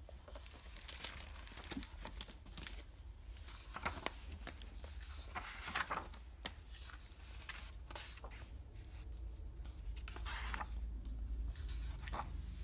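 Paper rustling and crinkling in short, irregular bursts as the picture book's pages are handled and turned, over a steady low hum.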